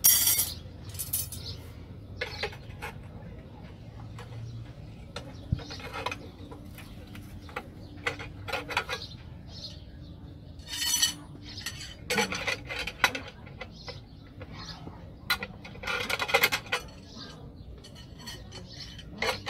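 Steel wire rod clinking and scraping against a steel bending bar as rebar stirrups are bent by hand: scattered metallic clinks and short scraping rasps, a few of them louder.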